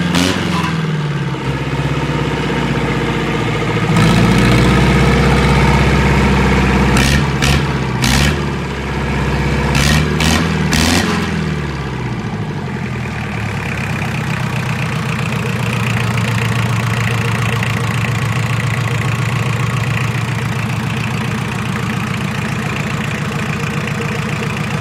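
Yanmar 4JM 36 hp four-cylinder marine diesel running, revved up and down by hand on the throttle, with a few sharp knocks about a third of the way in. It then settles to a steady, even idle for the second half.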